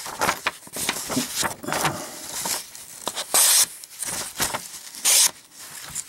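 A knife's D2 steel blade slicing through sheets of thin red paper: several short cutting strokes with rustling of the paper between them. Two longer, louder slices come about three and a half and five seconds in.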